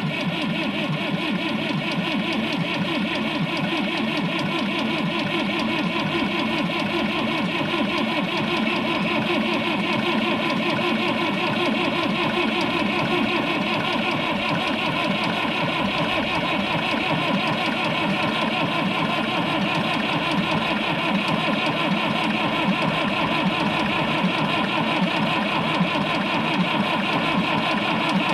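Massey Ferguson 35 tractor engine being turned over by its starter motor in a long, unbroken cold-start attempt, a steady fast mechanical beat without the engine catching.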